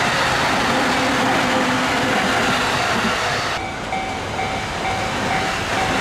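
A Keikyu train running past over the level crossing, a loud rushing rail noise that thins sharply about three and a half seconds in. A level-crossing alarm rings on as a steady repeating tone.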